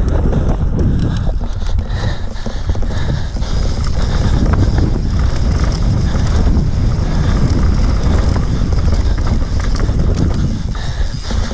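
Heavy wind noise buffeting the onboard camera microphone during a fast enduro run down a rough trail, with constant rattling and knocks from the ride over the terrain.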